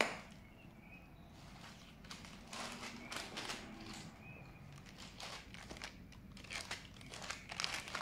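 Wet focaccia dough dropping onto oiled parchment paper in a baking pan, then hands stretching and pressing it out: crinkling of the parchment and soft squelches of dough and olive oil in irregular rustles through the second half.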